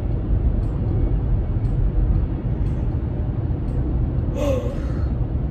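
A woman's long yawn muffled behind her hand, ending about four and a half seconds in with a short falling voiced cry, over the steady low road rumble inside a moving car.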